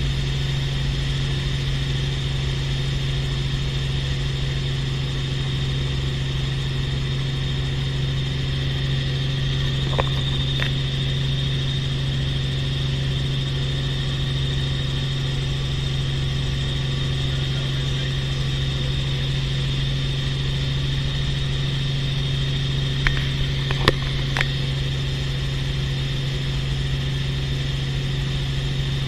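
Steady drone of a light helicopter's engine and rotor heard inside the cabin: a deep even hum with a high whine above it. A few short sharp clicks sound about ten seconds in and again about two thirds of the way through.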